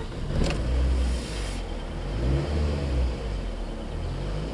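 Car engine just after starting, revs rising briefly about a second in, then settling into a steady idle.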